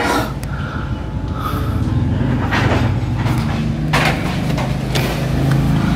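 Steady low engine hum, with a few brief knocks or scrapes about two and a half, four and five seconds in.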